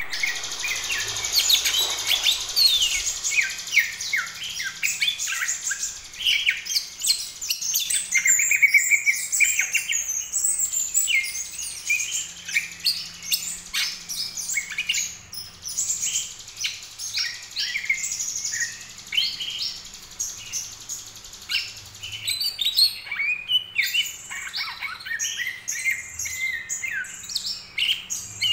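Young green leafbird (cucak ijo) practising its song: a long, rambling run of varied chirps and twitters, broken only by a couple of brief pauses.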